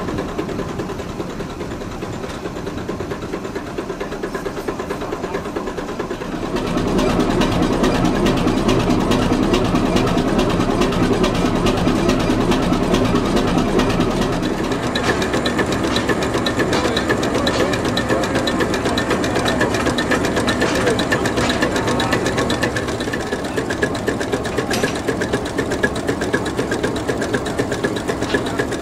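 Kromhout 4-F-240 four-cylinder vintage diesel engine running with an even, rapid beat. It gets louder about six seconds in and runs on steadily.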